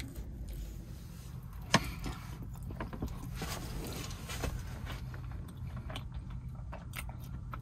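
Knife and fork clicking and scraping on a paper plate while cutting into a gravy-soaked chicken sandwich, with one sharper click a little under two seconds in, over a steady low hum.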